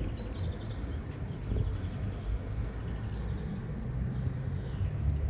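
Cat chewing chunks of wet food from a plastic plate, heard as small scattered clicks over a steady low rumble of street traffic.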